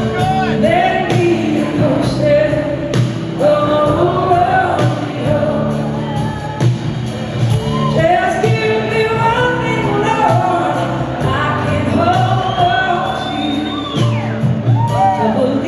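A blues-rock band playing live in a large hall: a woman sings lead over electric guitar, bass and drums, with a steady cymbal beat.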